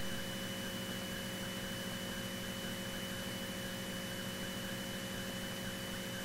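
Faint steady hum and hiss with a thin high whine: the cockpit intercom feed between transmissions, with the Beech T-34 Mentor's engine drone underneath.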